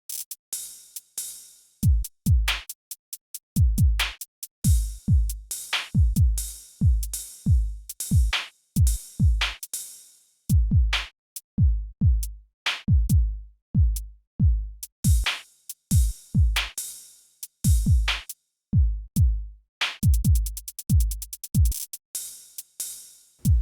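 Background electronic music: a drum-machine beat of deep kicks and sharp hits with silent gaps between them, and a rapid drum roll near the end.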